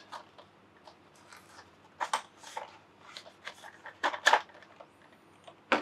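Small plastic board-game figures and their packaging being handled: a scatter of short clicks and rustles, spaced out over a few seconds.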